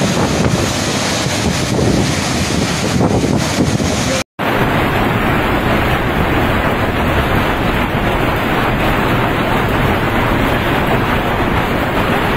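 Muddy floodwater rushing down a rocky gully as a loud, steady rush of water. After a brief dropout about four seconds in, the steady noise of a heavy downpour in a hailstorm takes over.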